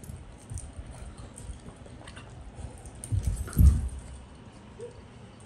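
A German Shepherd puppy and an older dog play-fighting: scuffling and bumping, with two loud low thumps a little past three seconds in.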